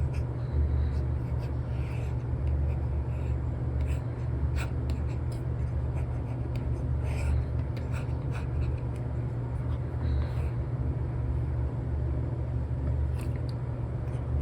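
Apple Pencil tip with an Elecom nib scratching and tapping on a paper-like screen film while sketching: short, irregular strokes and light taps over a steady low hum.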